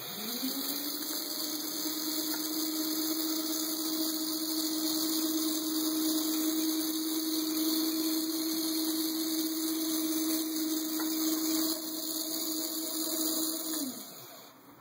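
Conveyor belt's electric drive motor spinning up with a rising hum, running steadily with a hiss over it, then falling in pitch and stopping near the end as the belt halts.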